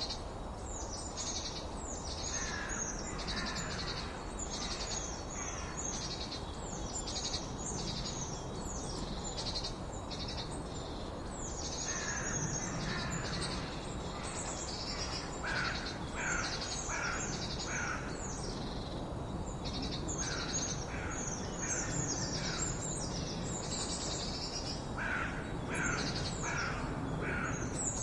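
Birds singing and chirping without a break: many quick, high, down-slurred notes, with a lower note repeated in short series of about four, twice. A steady low background noise lies beneath.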